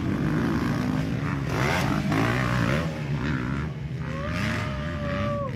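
Motocross dirt bike engines revving and running on the track, several at once, their pitch rising and falling. A steadier whine holds from about four seconds in and drops in pitch near the end.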